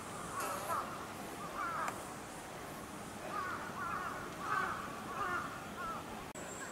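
Crows cawing: a string of short, harsh calls coming every second or so, loudest about two-thirds of the way through.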